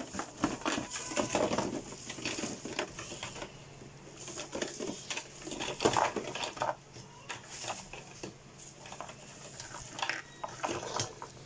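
Clear plastic wrapping crinkling and hard plastic incubator parts knocking and clattering as they are handled and unpacked, in irregular short bursts.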